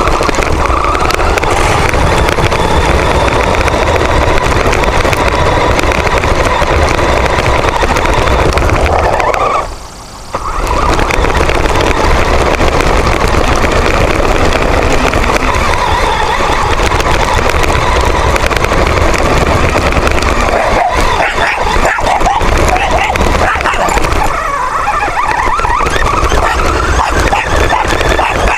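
Onboard sound of the Roverbot running over the ground: its drive and tyres make a loud, rough, continuous noise, broken by a short drop about ten seconds in. The noise has a farting quality that comes from the stretched front tyres, which have cracked open. A small dog barks at times.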